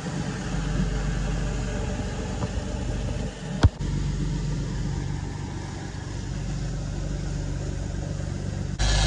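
Diesel engines of a 35-foot Caribbean sportfishing boat running steadily under way, a low drone under the rush of wake and wind. A single sharp click comes about a third of the way through, and the whole sound turns abruptly louder just before the end.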